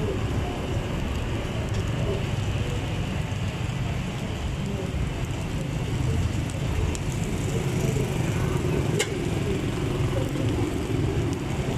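Steady low rumble with a faint hiss, the background noise of a street-food stall, with one sharp click about nine seconds in.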